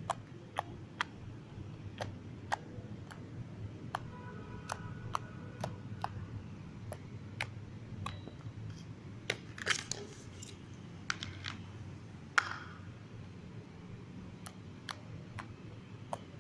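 Irregular sharp clicks and taps, about one or two a second, with a couple of short crackling rustles near the middle, as small plastic slime-kit containers and items are handled and opened.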